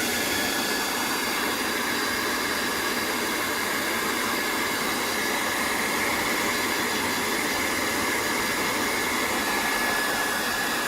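Handheld hot-air tool (heat gun) blowing steadily with a high fan whine. It winds down and cuts off near the end, the whine dropping in pitch.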